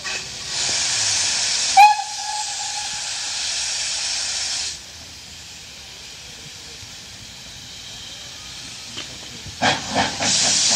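Steam locomotives blowing off steam: a loud hiss of escaping steam for about four seconds, with a short whistle toot about two seconds in. Near the end a few short sharp puffs come, then the hiss starts again.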